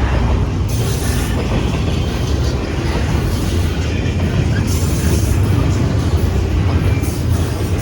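CSX freight train rolling through a grade crossing: a steady, loud low rumble of wheels on the rails.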